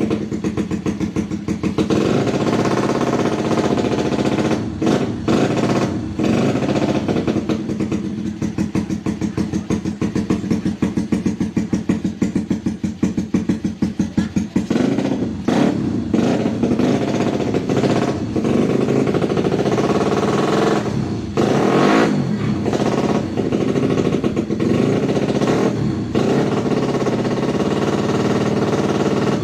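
Yamaha Jupiter Z underbone motorcycle with its single-cylinder four-stroke engine bored up to 130cc, running loud and being revved in repeated blips. The throttle drops back and picks up again several times, most clearly in the second half.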